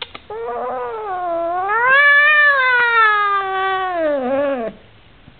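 An Oriental Shorthair cat gives one long, drawn-out yowl of about four seconds. It rises in pitch to a peak midway, then slides down before stopping abruptly.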